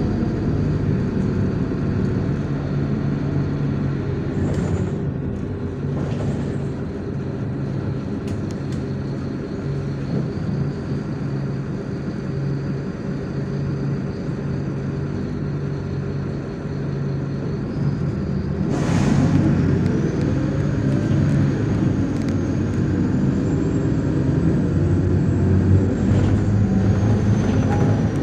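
MAZ-103 city bus heard from inside the cabin while driving: steady diesel engine hum with road noise. About two-thirds of the way through there is a short burst of hiss, after which the engine note and a thin high whine rise as the bus accelerates.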